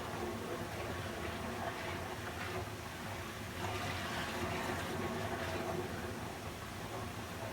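Water flowing steadily, an even rushing with gentle swells, used as white noise for sleep, with a faint steady low hum beneath it.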